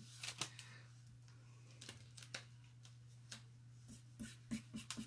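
Faint scattered rustles and light taps of hands pressing and smoothing a plastic adhesive stencil transfer down onto its carrier sheet, coming more often near the end, over a steady low electrical hum.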